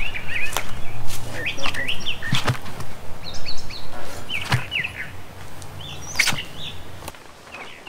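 A tyre being levered by hand over a steel wheel rim with a pry tool: about five sharp metal clanks and knocks a second or two apart, with short high chirps between them.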